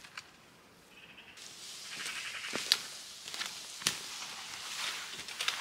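Rustling of a green pine bough, its needles and twigs brushing as it is carried and dragged, building up about a second and a half in. Two sharp snaps of twigs come about a second apart.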